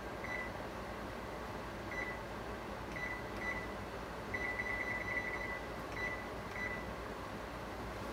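Electronic beeps from a kitchen range's control panel, all at the same pitch: single short beeps at irregular intervals and one quick run of about eight beeps a little past four seconds in, over a steady background hum.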